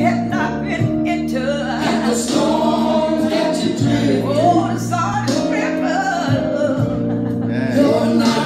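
A woman singing a gospel song into a microphone, amplified through a PA, over held low accompaniment notes.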